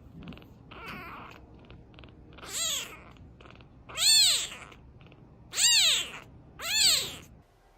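A domestic cat meowing four times, each meow rising and then falling in pitch, the first one softer. Faint purring comes before the meows.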